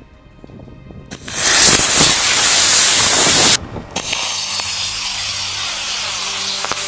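A cluster of six Estes D12 black-powder model rocket motors igniting and burning with a loud rushing hiss, starting about a second in. The hiss breaks off abruptly about halfway through, then carries on a little quieter. The rocket's central G motor failed to light, so only the D12s are burning.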